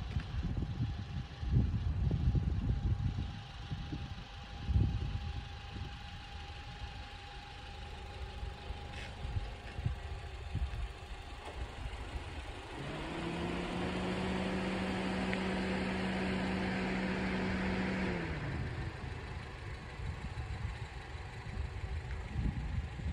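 Wind gusting on the microphone, then a motor vehicle's engine running for about five seconds near the middle, its pitch rising as it comes in, holding steady, and dropping away at the end.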